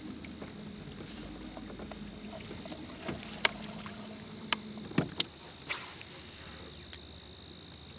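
Sharp clicks and knocks from handling a rod and reel aboard a fishing boat, over a steady low hum that stops about five seconds in.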